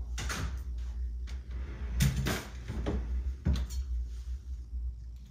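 A few scattered knocks and bumps of household handling, such as cupboard doors, over a steady low hum; the loudest cluster comes about two seconds in.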